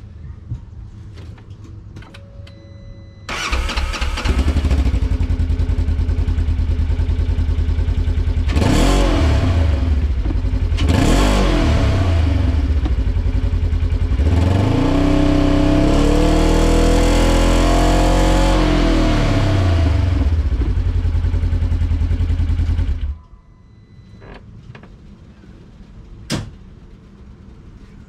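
2015 Polaris RZR 900's parallel-twin engine through its stock exhaust: it starts about three seconds in and idles. It is then blipped twice and revved and held up for several seconds before being switched off, cutting out suddenly.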